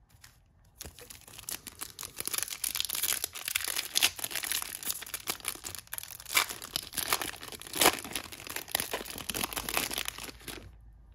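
Topps Chrome trading-card pack's foil wrapper crinkling and being torn open by hand: a dense crackle that starts about a second in and stops just before the end, with several louder rips along the way.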